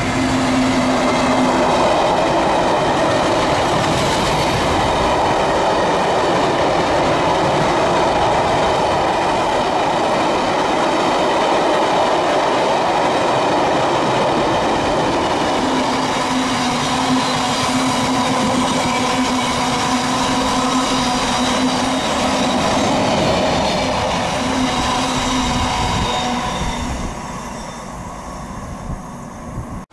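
Wagons of a long stone train rolling past, the steel wheels rumbling and ringing on the rails with steady ringing notes over the noise. It fades away near the end as the last wagons draw off.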